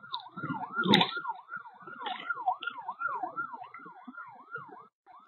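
Emergency vehicle siren in a fast yelp, rising and falling about three times a second, cutting out briefly near the end. A loud knock comes about a second in, over low buffeting of strong typhoon wind on the microphone.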